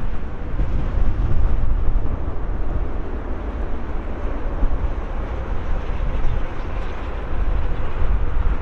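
Jet engine noise from a Boeing 747-8F's four GEnx-2B turbofans: a loud, steady noise heavy in the low end, with wind buffeting the microphone.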